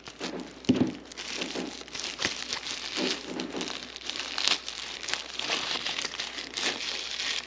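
Thin plastic packaging bag crinkling and rustling as it is handled and unwrapped, a dense run of small crackles with a louder handling bump a little under a second in.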